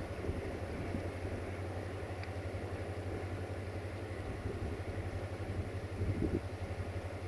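Low, steady rumble of a distant diesel passenger train running along the line.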